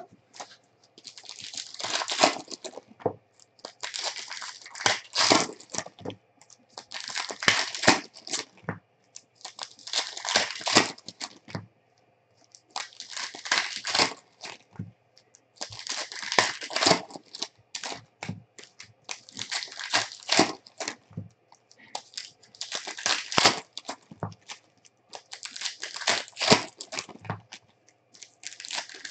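Plastic and foil wrappers of trading card packs being torn open and crinkled. The sound comes in about ten crackly bursts of a second or two each, roughly every three seconds, one pack after another.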